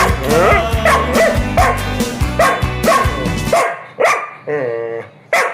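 A dog yipping and whining, the calls of a dog demanding to be taken for a walk, over background music with a steady beat. The music cuts off about two-thirds of the way in, leaving short barks and one drawn-out whine.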